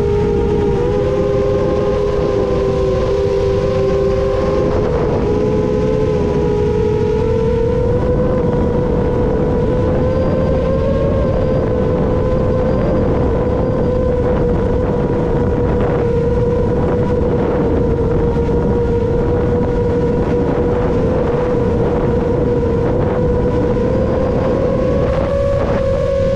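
A 7-inch FPV quadcopter's motors and three-blade propellers in flight: a steady buzzing whine that dips and rises a little in pitch with throttle, over a low rushing noise.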